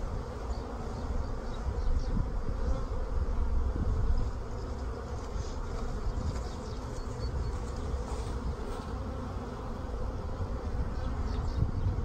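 Honeybees buzzing steadily in a crowd over the open top bars of a queenless split hive, with a low rumble underneath.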